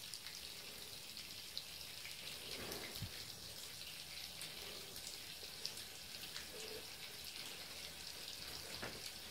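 Bathtub tap running a thin stream of water onto the tub's enamel floor: a faint, steady spattering hiss with small drip-like ticks.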